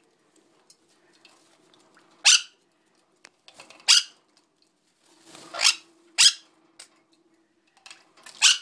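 Quaker parrot giving five short, loud squawks, one to two seconds apart.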